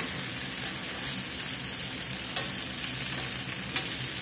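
Flour-coated chicken pieces sizzling steadily as they brown in hot fat in a skillet, with a few sharp clicks of metal tongs turning them, the loudest about two and a half seconds in and near the end.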